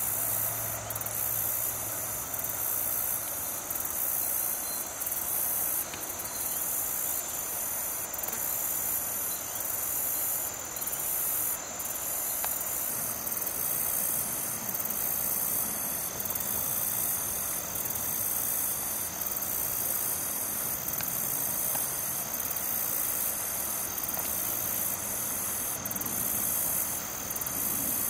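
Late-summer insect chorus: a steady, high-pitched trilling with a thin, unbroken whine beneath it, the trill dropping out in short gaps every second or so.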